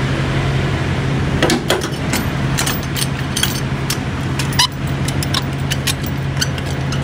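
Semi-trailer landing gear being cranked by hand: irregular metallic clicks and clanks from the crank handle and gearing, starting about a second and a half in. Under them runs a steady low engine hum.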